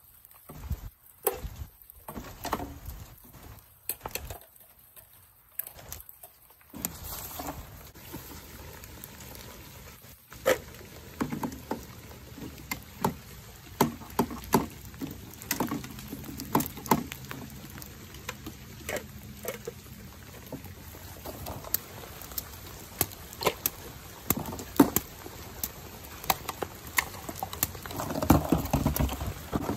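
Light rain pattering, with scattered sharp clicks and knocks of small plastic toy trash bins being grabbed, lifted and tipped into a plastic wastebasket. In the first several seconds the sound cuts out briefly several times.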